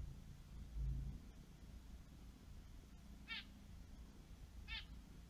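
Two short, high animal calls about a second and a half apart, over a faint low hum, with a dull low bump about a second in.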